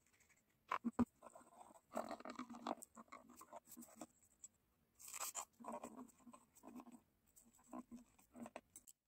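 Small pointed steel hand tool scraping and scratching copper earring pieces on a wooden table, in short irregular strokes, with two sharp taps about a second in.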